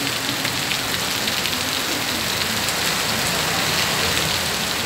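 Heavy rain falling on a wet road and pavement, a dense, steady hiss.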